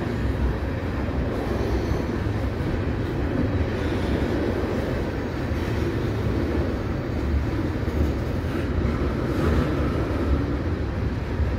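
Freight train of tank cars rolling past close by: a steady rumble of steel wheels on the rails.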